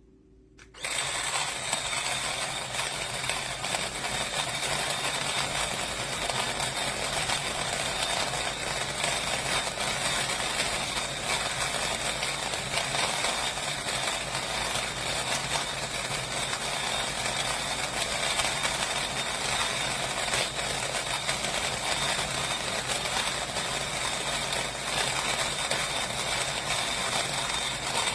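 Small battery-powered electric conical burr coffee grinder running steadily, grinding beans with a high motor whine, starting about a second in.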